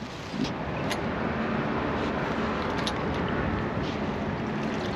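Steady rushing noise of a passing motor vehicle, with a faint low hum.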